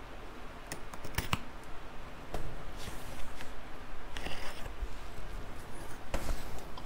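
A craft knife slitting packing tape along the seam of a large cardboard box lid: a series of short scrapes and clicks of the blade dragging through tape and over cardboard.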